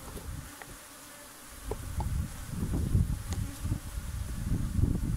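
Honey bees buzzing in a steady hum around an opened hive. From about two seconds in, a louder low rumbling noise joins in.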